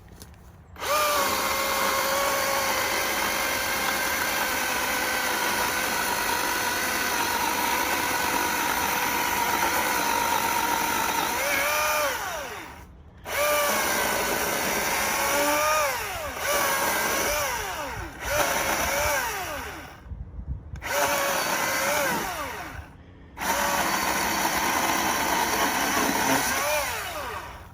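Milwaukee Fuel battery chainsaw's electric motor whining at full speed as it cuts through a thick log. After a long steady cut, it runs in several shorter bursts, winding down in pitch each time the trigger is let go.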